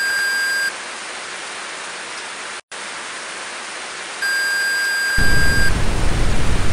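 Steady TV-static hiss, a sound effect, with a high steady beep sounding twice, each about a second and a half long. It cuts out for an instant about two and a half seconds in. About five seconds in, the static turns louder and rougher, with a low rumble.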